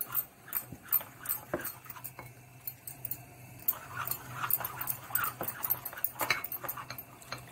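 A spoon stirring a thin flour-and-cornflour batter in a glass bowl, with irregular clicks and scrapes against the glass and a few short squeaks. A steady low hum runs underneath.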